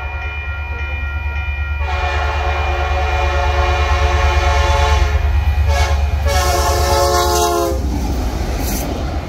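Diesel switcher locomotive sounding its air horn as it approaches and passes a grade crossing. There is one long blast from about two seconds in and a shorter blast around six and a half seconds, over the low rumble of the locomotive, which grows louder as it goes by.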